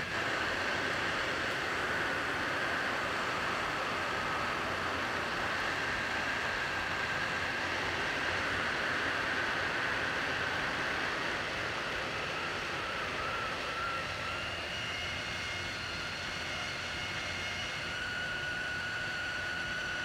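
Hot air rework station blowing steadily, a constant airy hiss with a faint whistle that wavers slightly in pitch.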